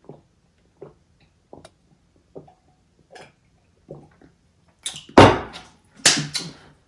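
A person gulping a drink, with a faint swallow about every three-quarters of a second. Near the end come a few much louder short noisy sounds.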